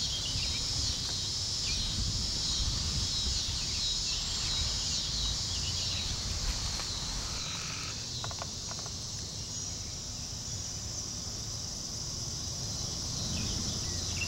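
Outdoor summer ambience: a steady, high-pitched chorus of insects, with a few bird chirps in the first seconds and a low rumble underneath.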